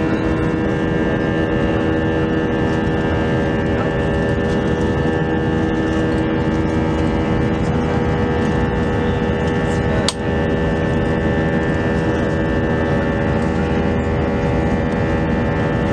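Steady cabin noise of an Airbus A320's IAE V2500 engines and airflow in flight after takeoff, with several steady tones over the rush. A single sharp click about ten seconds in.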